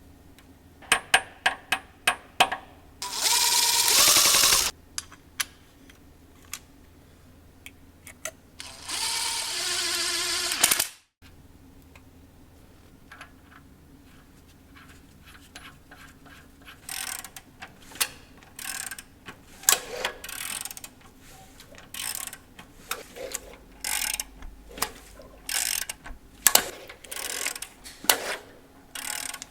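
Mechanic's tools working on an engine: irregular metallic clicks and clinks, with two steady noisy bursts of a power tool lasting a second or two each in the first half.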